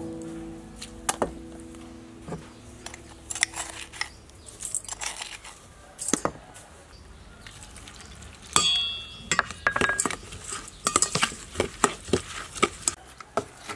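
A metal spoon stirring and scraping in a stainless steel bowl, mixing chopped green onion and garlic with seasonings, with irregular clinks against the bowl. A sharper ringing clink comes about eight and a half seconds in.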